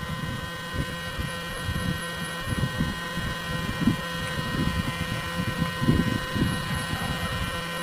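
Irregular soft knocks and rubbing from a tripod selfie stick being handled and adjusted, over a steady electrical hum.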